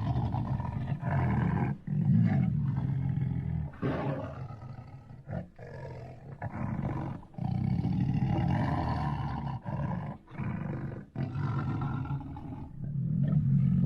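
Lion roaring: a run of deep, rough roars broken by short pauses, starting suddenly.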